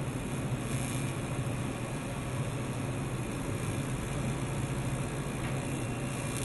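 TIG welding arc running steadily, a constant buzzing hiss with no breaks.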